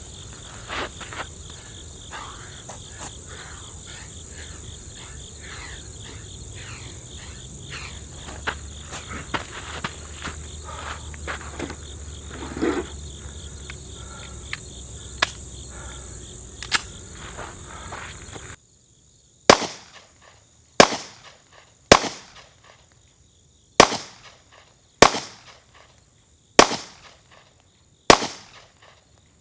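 Insects chirping steadily with scattered light clicks and rustling. About two-thirds of the way through, the background cuts out and seven handgun shots are fired, spaced about one to two seconds apart.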